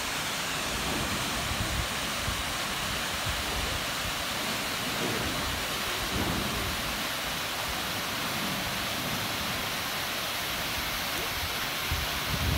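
Steady rushing of Manai Falls, a tall waterfall plunging into the gorge pool below, heard from above as an even hiss. Faint voices are audible now and then.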